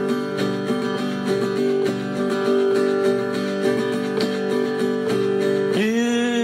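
Acoustic guitar strummed in a steady rhythm as a song's instrumental intro. A man's singing voice comes in near the end.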